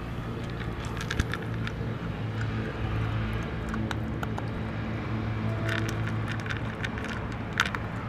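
A dog crunching dry kibble from a bowl: scattered sharp crackling clicks, the loudest about a second in and again near the end. Under it runs the steady low hum of an idling engine.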